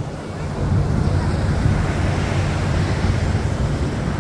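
Lockheed C-130J's turboprop engines, a steady low rushing roar that swells about half a second in, with wind buffeting the microphone.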